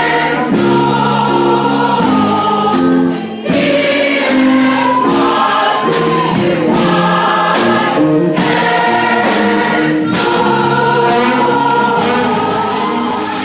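Choir singing a Christian worship song, fading out near the end.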